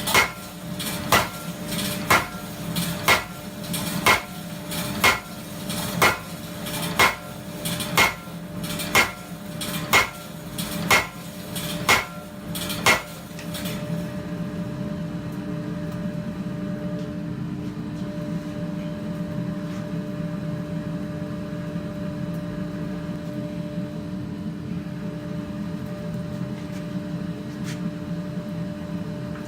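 Custom-built blacksmith power hammer striking hot steel in sharp, ringing blows at about one a second, drawing down the end of a 30 mm by 10 mm bar. The blows stop about halfway through, and a steady mechanical hum carries on.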